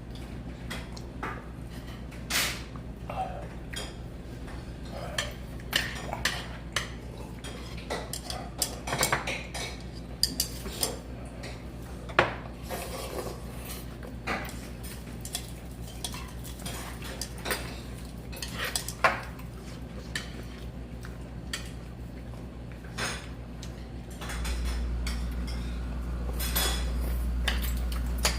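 Kitchen utensils and dishes clinking and knocking, many irregular light clinks scattered throughout. A steady low hum runs underneath and gets louder about 24 seconds in.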